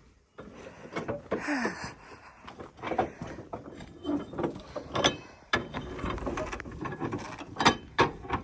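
Irregular mechanical clicking and clanking, with a short squeak about a second and a half in.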